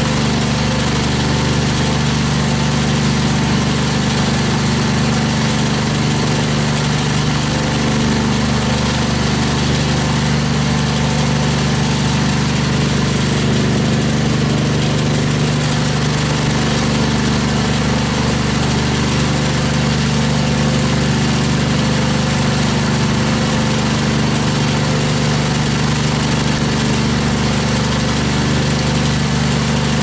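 Gas engine of a trailer-mounted wood chipper running steadily at constant speed, with no change in load.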